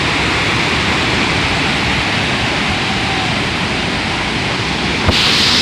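Fast, rain-swollen river rushing: a steady, loud roar of churning water. About five seconds in, the hiss becomes brighter.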